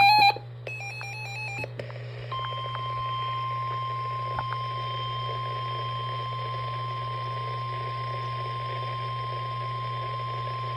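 Emergency Alert System SAME data bursts, a short one and then a longer warbling one, followed after a brief gap by NOAA Weather Radio's steady 1050 Hz warning alarm tone held for about nine seconds, over radio hiss and hum. The tone signals that a warning message is about to be broadcast.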